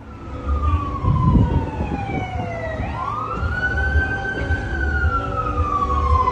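Wailing siren: a long falling tone, then a rise about three seconds in and a slow fall again, over a low rumble.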